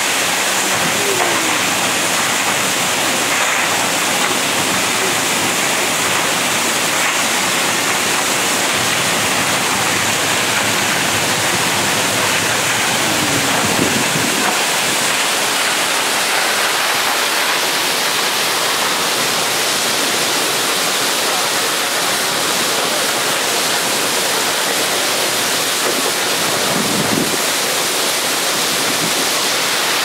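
Waterfall swollen by thunderstorm runoff, a loud steady rush of falling water splashing down onto rocks and a pool.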